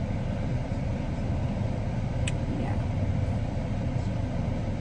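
Car engine idling, a steady low rumble heard from inside the cabin, with one faint click about two seconds in.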